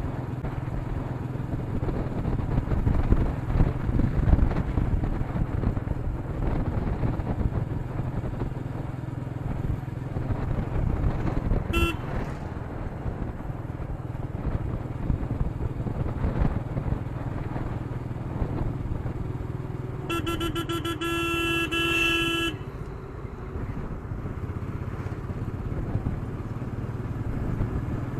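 Royal Enfield Meteor 350's single-cylinder engine running steadily under way, with wind rumble on the camera. A vehicle horn gives a short toot about 12 seconds in and a longer blast of about two and a half seconds starting around 20 seconds in.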